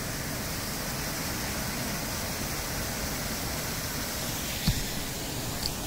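Fountain water spilling steadily over the rim of the sculpture's pool, a constant rushing splash. A single short knock comes about three-quarters of the way through.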